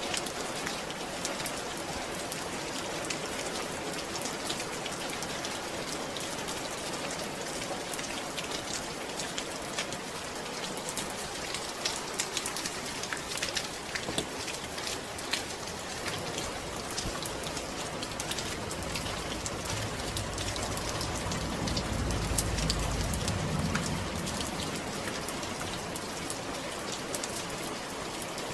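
Steady rain pattering on a surface, with many small drop clicks. A low rumble swells and fades about two-thirds of the way through.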